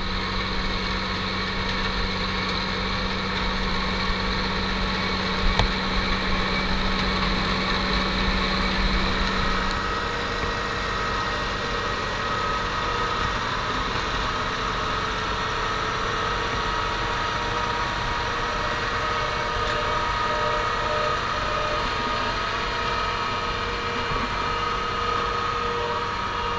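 John Deere tractor's diesel engine running under load while driving a PTO-powered rotary V-ditcher, whose cutter wheel throws soil as it digs. A steady mechanical drone, with a high whine joining about ten seconds in.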